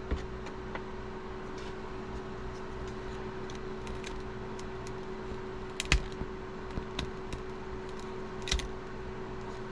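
Small clicks and scrapes of a tool being worked against the edge of a heated phone, feeling for a spot to start prying the glued screen loose, with two sharper clicks about six and eight and a half seconds in. A steady low hum runs underneath.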